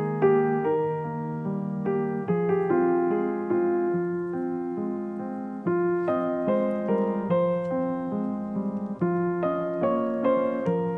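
Background piano music: a solo piano playing a gentle run of struck notes.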